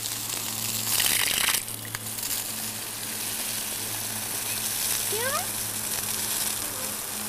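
Garden hose spraying water onto muddy ground: a steady hissing patter, louder for a moment about a second in. A short rising squeak sounds about five seconds in.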